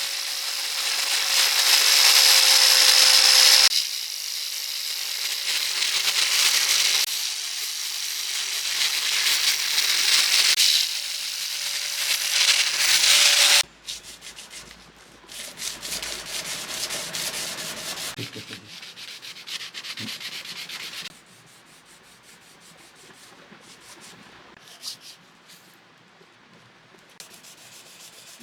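Abrasive sanding of a quenched spring-steel dagger blade. For the first half a power sander runs with a steady motor hum, in several stretches that start and stop abruptly. It then gives way to quieter rubbing strokes that grow faint in the last few seconds.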